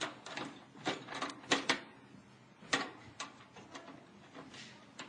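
Irregular metallic clicks and knocks from taking off the sheet-metal side access panel of an air conditioner's outdoor unit, the loudest knocks about one and a half and nearly three seconds in.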